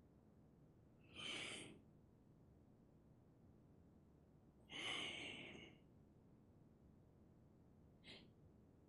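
Audible breaths against near silence: a breath about a second in, a longer, louder one around five seconds that tails off, and a brief short one near the end.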